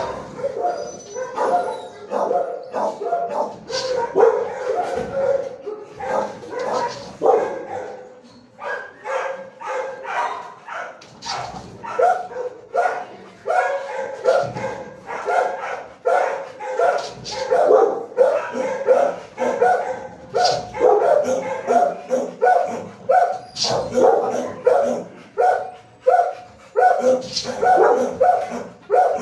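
Many dogs barking over one another without pause in a shelter kennel block, with a brief lull about eight seconds in.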